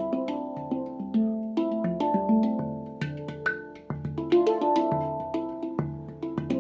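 Sibiria Sound Sculpture handpan played with bare hands in a quick rhythmic pattern: struck tone fields ring on and overlap, mixed with sharp percussive taps and the deeper central ding note.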